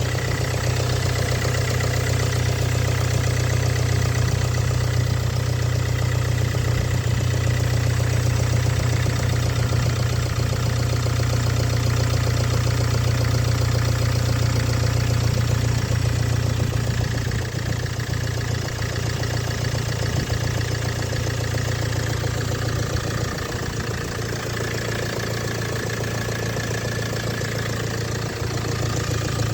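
Cold engine idling steadily with a rapid, even knocking running through it: the knock that shows up on a cold engine.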